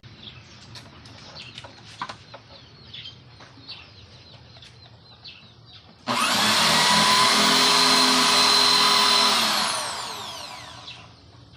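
An electric power tool starts suddenly about six seconds in, runs steadily for about four seconds and then winds down, falling in pitch as it coasts to a stop. The tool is cutting out the hole inside a small wooden speaker box to make it larger. Before it starts there are only faint scattered clicks of handling.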